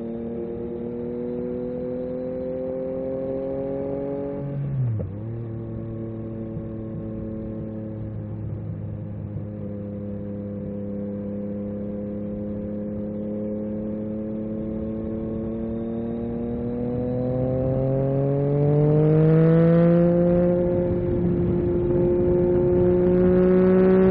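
Yamaha MT-09 SP's three-cylinder engine through an Akrapovic carbon racing exhaust, pulling under load. It shifts up quickly about five seconds in, cruises steadily, then accelerates harder and louder from about two-thirds of the way through and holds the higher revs.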